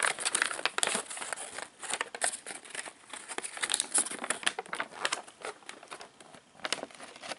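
A folded paper pamphlet being unfolded by hand, its paper crinkling and rustling in a run of quick crackles that thin out near the end.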